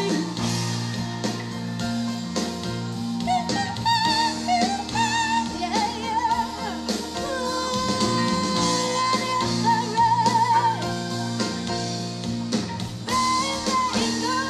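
Live band playing a slow pop-rock song: drums, bass, electric guitars and keyboards, with a wavering lead melody line over a steady low bass.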